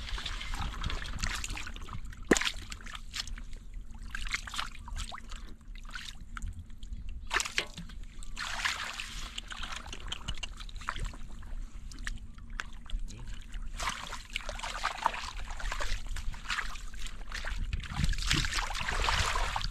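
Water splashing and sloshing in repeated bursts of a second or two, with a few sharp knocks between them.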